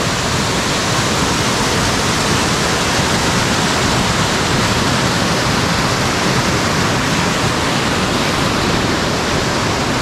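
Large mountain waterfall pouring, a loud steady rush of falling water with no change.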